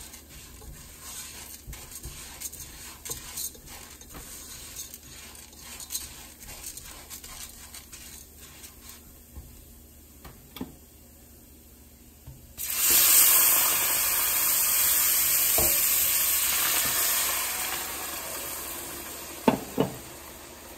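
A spatula stirring and scraping dry toasted orzo in a hot pot, then, about halfway through, a sudden loud sizzling hiss as water with chicken bouillon is poured into the hot pot, fading over several seconds. Two sharp taps near the end.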